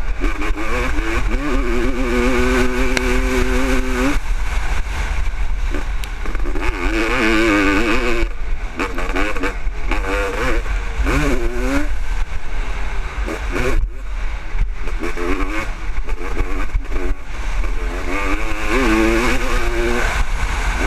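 1996 Honda CR500's single-cylinder two-stroke engine revving hard under race load, its pitch climbing and dropping again and again with throttle and gear changes, held steady for a couple of seconds at times. A steady low wind rumble on the helmet camera's microphone runs under it.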